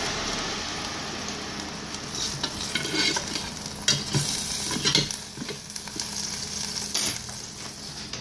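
Ribeye steak sizzling in a Ninja Foodi on air crisp at 400, a steady hiss of frying fat with scattered sharp pops and crackles.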